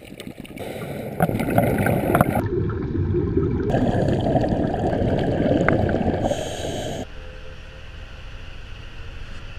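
Underwater rushing and gurgling of scuba bubbles, heard through a camera's waterproof housing, with a few sharp clicks. About seven seconds in it drops to a quieter steady low rumble inside a tour bus.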